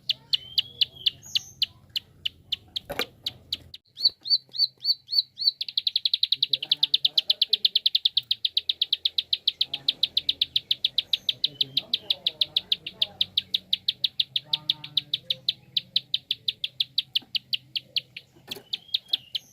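Prinia (prenjak) giving its rapid clicking call: sharp high 'klik' notes repeated about five a second, running together into a fast rattle about five and a half seconds in and spacing out again near the end.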